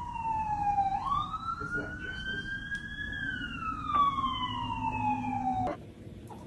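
Emergency-vehicle siren wailing: one tone slides slowly down, rises over a couple of seconds, then falls again, and cuts off abruptly near the end.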